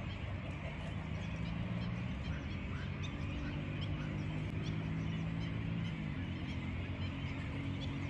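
Birds chirping and calling over a steady low hum that runs throughout.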